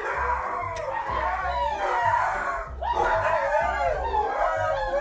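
A dog howling in long, wavering calls that slide up and down in pitch, with a brief break a little past halfway.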